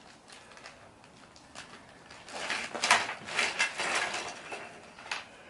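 Small plastic and metal parts clicking and clattering as they are handled, with a busy run of clatter from about two to five seconds in.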